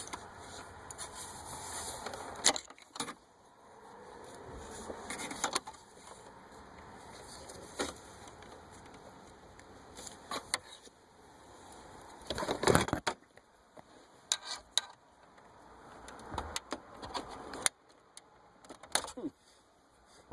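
Scattered plastic clicks and knocks with rustling, as the wiring harness and antenna connectors are unplugged from a car's factory radio. The clicks come every second or two, with a louder cluster of knocks a little past halfway.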